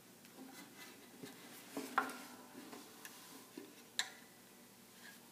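Handling noise from a homemade four-string resonator guitar being lifted and turned: irregular light knocks, clicks and rubs against its body. The loudest knock comes about two seconds in, with a brief low ring after it, and another sharp knock comes at four seconds.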